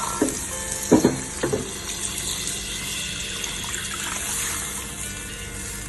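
About a litre of hot water poured into a hot frying pan of butter-browned chicken, ginger, garlic and green chilies, running and hissing steadily. A few knocks come in the first second and a half.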